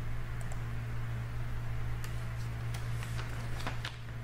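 A steady low hum with several faint clicks of a computer mouse, most of them in the second half, as a dimension is placed in CAD software.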